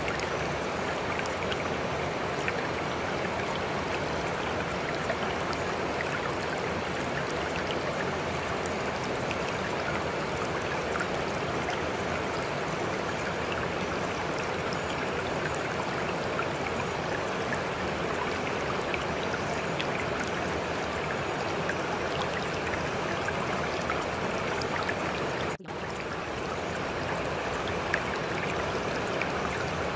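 Steady running water like a stream, an even rushing flow with no change. It breaks off for a split second about three-quarters of the way through, then carries on.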